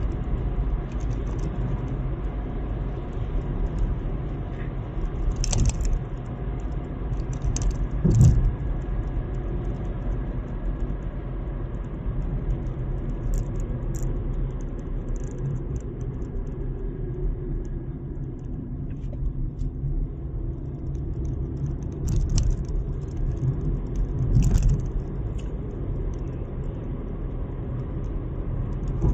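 Steady road and engine rumble heard from inside a moving car, with scattered short rattles and knocks, the loudest about eight seconds in and again near 24 seconds.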